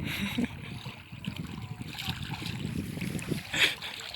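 Seawater splashing and lapping around people in the sea, with a low rumble of wind on the microphone and a brief louder splash-like burst about three and a half seconds in.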